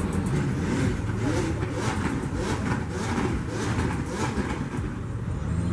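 A car engine running through its exhaust, its note rising and falling as it revs, with several short rasping bursts between about one and four and a half seconds in.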